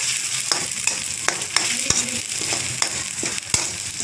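Onions and freshly added ground masala paste sizzling in hot oil in an aluminium kadai while a spatula stirs and scrapes them around the pan. A few sharp clicks come from the spatula striking the metal.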